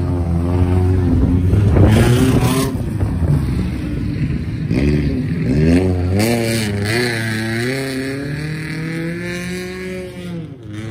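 Off-road racing vehicle's engine revving hard, its pitch rising and falling repeatedly as the throttle is worked, with rushes of noise about two seconds in and again around six seconds.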